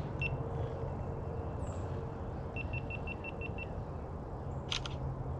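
A short high beep, then a rapid run of about seven short beeps at the same pitch, over a steady low hum; a brief rustle near the end.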